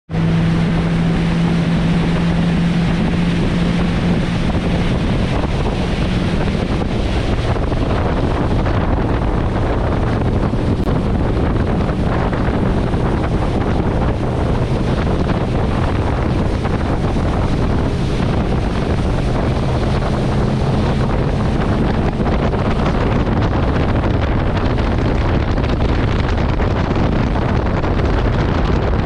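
Motorboat under way at speed: a steady engine hum under water rushing and spraying along the hull, with heavy wind buffeting the microphone.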